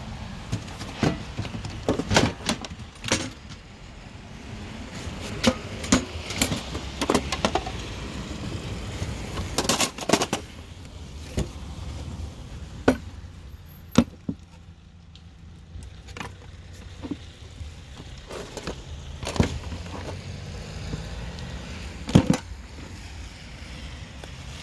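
Irregular knocks, clicks and clatters of discarded plastic and metal household appliances being handled and moved, including a deep fryer's hinged lid and wire basket, over a low steady rumble.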